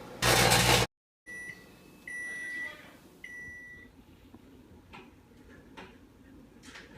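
Microwave oven blowing out: a loud half-second burst of noise, then a brief dead gap. Three high electronic beeps follow, the last two longer, then a few faint clicks.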